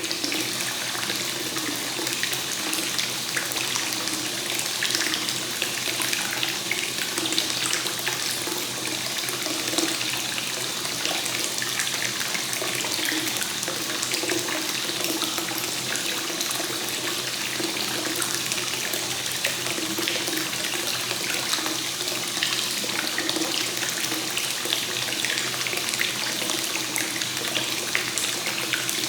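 Hot spring water flowing continuously into a bath, a steady splashing and gurgling of running water.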